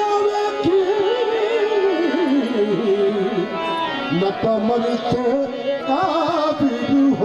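Qawwali music: an ornamented, wavering melody over a held drone, with tabla strokes.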